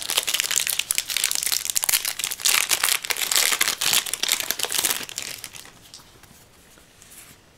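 Foil wrapper of a Yu-Gi-Oh! booster pack crinkling as it is torn open and handled. The crackling dies away about five seconds in.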